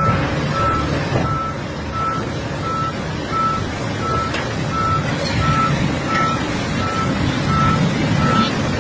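Back-up alarm of heavy machinery beeping steadily at one pitch, about one and a half beeps a second, over the low running of a diesel engine.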